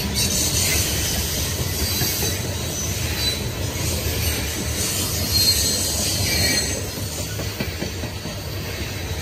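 CSX coal train's open-top coal cars rolling past: a steady low rumble of steel wheels on rail, with thin high wheel squeal coming and going.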